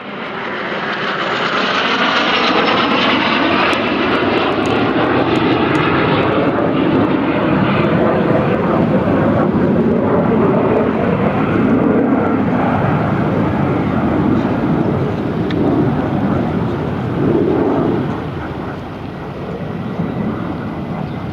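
Jet noise from a formation of Alpha Jet trainers with twin Larzac turbofan engines, flying past. It is loud and sustained, with a sweeping tone that falls over the first few seconds as they pass, and it eases off somewhat near the end.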